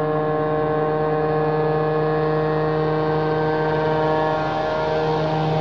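Single-engine piston floatplane on its take-off run at full power, engine and propeller holding a steady, even drone made of several tones.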